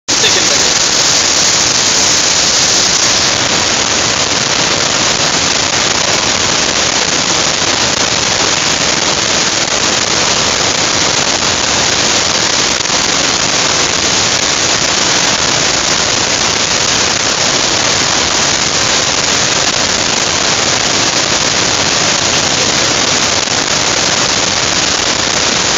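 Niagara Falls' water pouring down just outside a rock tunnel opening: a loud, steady, unbroken rush of falling water.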